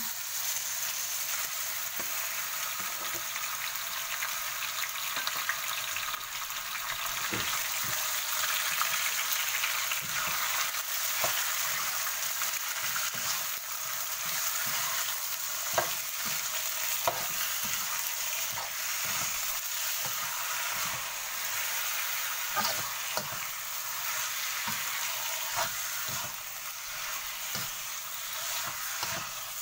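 Pork belly cubes sizzling as they sear in hot oil and melted sugar in a wok, with scattered clicks and scrapes from a metal utensil stirring them.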